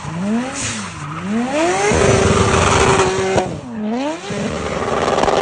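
Race car engine revving hard in quick rises and falls, then held at a steady high pitch for about a second and a half under a loud rush of noise, before rising and falling again near the end.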